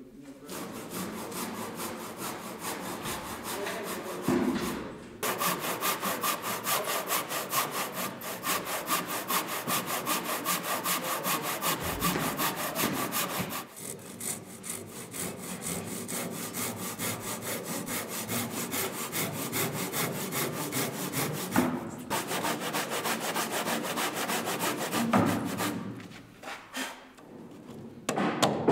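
A handsaw crosscutting a squared timber beam by hand, in quick, even back-and-forth strokes. The sawing breaks off and picks up again a few times.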